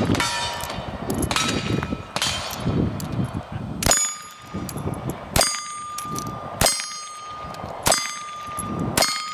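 Revolver shots fired one after another at steel plate targets: about seven sharp cracks, roughly one every second and a half, each bullet strike leaving the steel plate ringing with a clear clang that carries on until the next shot.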